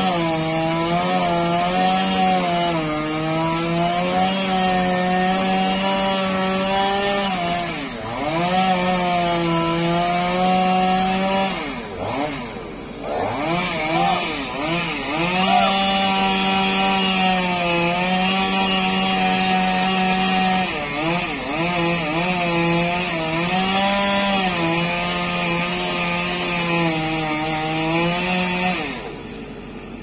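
Chainsaw running hard as it cuts into a palm tree. Its pitch sags and recovers several times under load, dips deeply once about twelve seconds in, and the saw stops about a second before the end.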